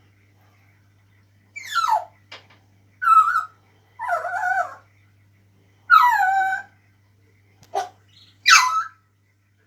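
African grey parrot mimicking a dog: six short bark- and whine-like calls about a second apart, the first sliding down in pitch.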